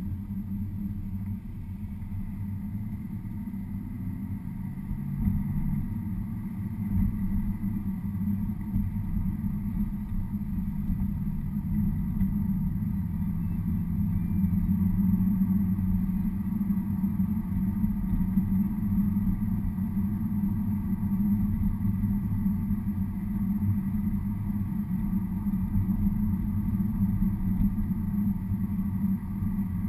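Car interior noise while driving: the engine and tyres on the road make a steady low rumble, which grows a little louder about five seconds in.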